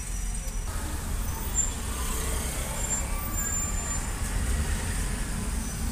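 Steady low engine and road rumble heard inside a taxi's cabin as it moves slowly through city traffic.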